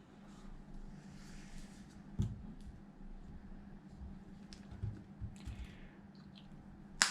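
Light, scattered clicks and taps of hands handling the RC truck's wiring and plastic parts, with one sharper click near the end.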